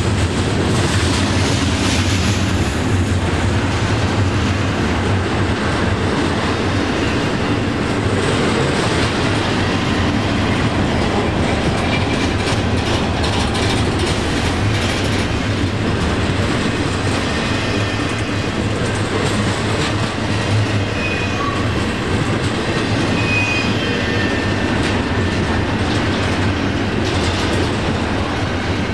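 Freight train rolling past: a continuous heavy rumble of cars on the rails with wheel clatter, and a few faint high wheel squeals in the second half.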